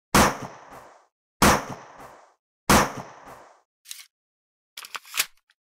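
Gunshot sound effects: three sharp bangs about 1.3 s apart, each with a short decaying tail, followed near the end by a few lighter, quicker clicks.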